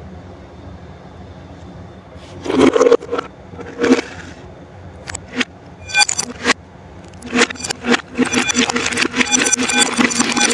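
Crisp crunching and crackling of crunchy food being eaten, in sharp irregular bursts that start about two and a half seconds in and grow dense and continuous from about eight seconds.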